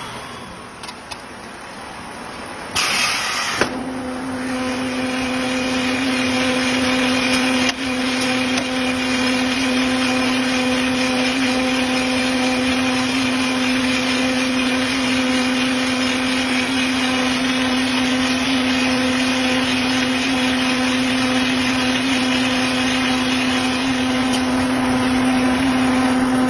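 Tractor-driven straw baler machinery. A short loud burst about three seconds in, after which the machine runs with a steady, constant-pitched hum.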